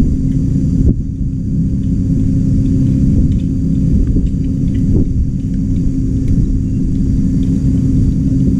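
Steady low rumble under a constant hum, with a few faint light clicks, the clearest about a second in and about five seconds in.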